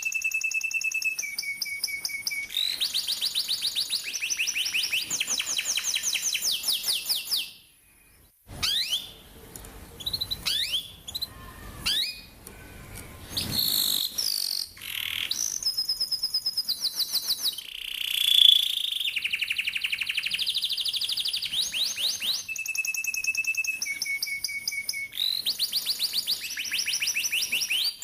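Domestic canary singing long, fast rolled trills that shift pitch every second or two, broken briefly by a short pause and a run of varied chirps and whistles before the rolls start again.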